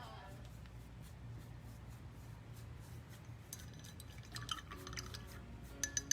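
Light clinking of hard objects on glass: a loose cluster of small ringing taps past the middle, then a quick run of five or six sharper clinks near the end, over a low steady hum.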